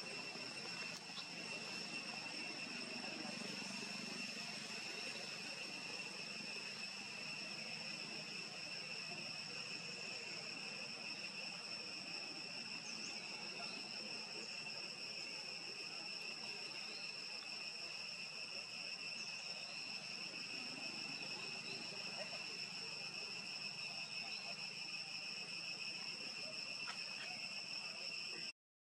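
Insects droning steadily at one high pitch over faint outdoor background noise, cutting out briefly just before the end.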